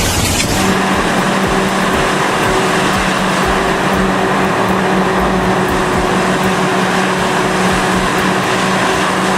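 Heavy machine's engine running steadily with a constant hum.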